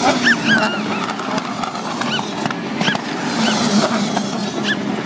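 WTCC touring car's 1.6-litre turbocharged engine running at speed as it passes on the circuit's far straight. Repeated short chirps, each rising then falling in pitch, sound over the engine noise.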